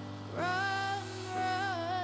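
Background music: a slow song, with a sung melody of long wavering notes coming in about half a second in over low held accompaniment.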